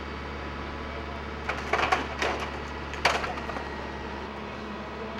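Excavator engine running steadily while wood cracks and crashes, a few sharp bursts about one and a half to three seconds in, as the machine tears into the building's framing.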